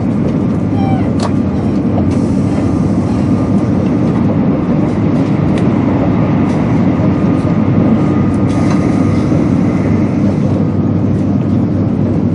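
Cabin running noise of a 200 series Shinkansen travelling at speed: a steady, loud, deep rumble with a few faint ticks.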